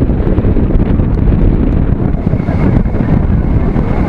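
Steady wind buffeting the microphone over the low rumble of a moving roller coaster train on its track.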